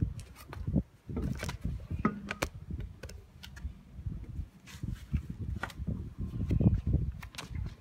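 Car wheel being handled on its hub: scattered light clicks and knocks of the wheel and lug nuts, over an uneven low rumble.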